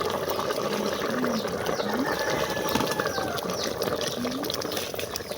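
Beef stew in peanut butter sauce bubbling steadily in a cooking pot.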